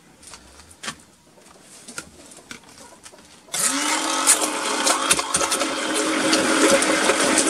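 Handheld immersion blender switched on about halfway through, its motor spinning up and then running loud and steady as it blends eggs and lemon juice into mayonnaise in a plastic beaker. Before it starts, a few light clicks and knocks of things being handled on the table.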